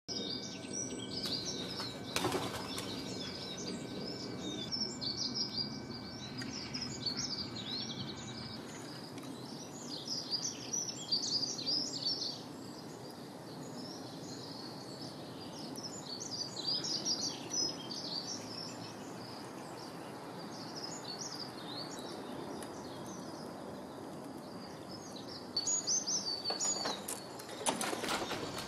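Small songbirds chirping and singing in scattered bursts over a steady outdoor hiss, with a few short knocks or rustles near the end.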